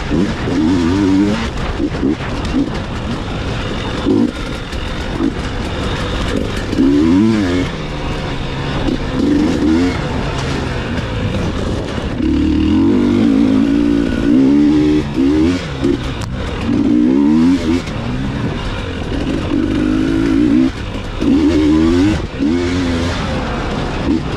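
Dirt bike engine heard from on the bike while trail riding, its revs rising and falling again and again as the rider works the throttle and gears.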